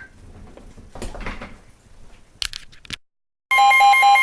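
Faint rustling and a few sharp clicks, then a gap of silence. About three and a half seconds in, a loud emergency alert tone starts abruptly: a steady tone with a rapid beeping over it, announcing the next severe thunderstorm warning.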